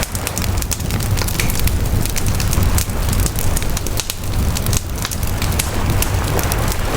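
Wood fire crackling, with frequent sharp pops over a steady low rumble.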